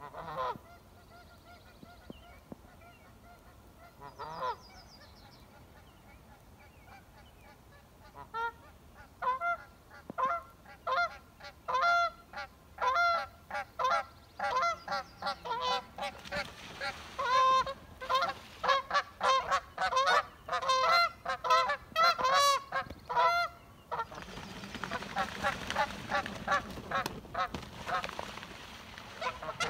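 Geese honking: a few single calls at first, then from about eight seconds in a rapid, agitated run of honks that grows louder and denser, the sound of a territorial confrontation between geese. Near the end a rush of noise rises under the honking.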